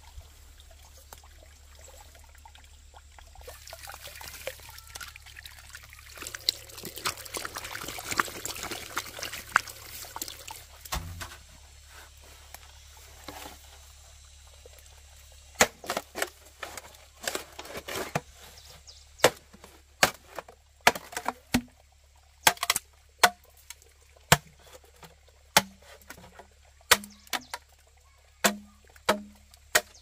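Water pouring for several seconds, then a steady run of sharp knocks, a little more than one a second, louder than the pouring.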